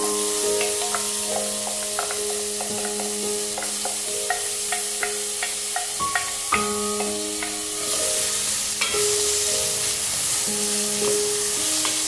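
Chopped onion sizzling in a hot aluminium pot as it is tipped in and stirred with a wooden spoon, with small scrapes and taps of the spoon against the pot. The sizzle grows louder about eight seconds in.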